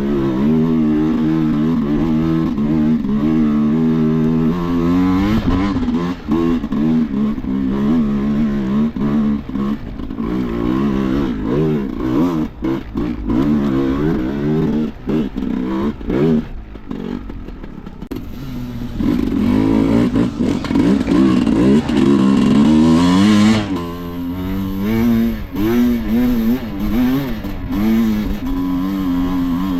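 Enduro motorcycle engine revving up and down in short bursts as the throttle is opened and closed over and over. The engine eases off for a couple of seconds around the middle, then runs harder before dropping back sharply.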